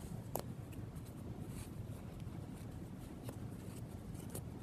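Faint rustling of felt and sewing thread being handled and drawn tight, with a few light clicks, over a low steady room hum.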